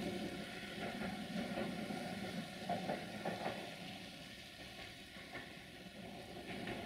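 Distant rail traffic, heard as a faint, steady, low rushing noise that slowly fades, with a few light clicks about halfway through.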